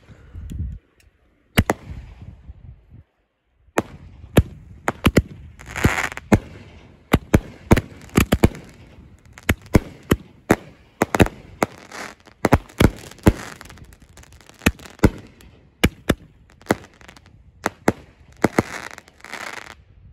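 Consumer firework mortar barrage going off: a rapid series of sharp bangs from the shots launching and bursting, with a few stretches of crackle. After a few scattered bangs and a short lull, the shots come fast, often several a second.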